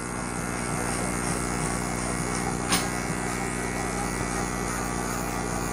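Electric hair clipper fitted with a comb guard buzzing steadily as it cuts hair up the side of the head. A single short click sounds about two and a half seconds in.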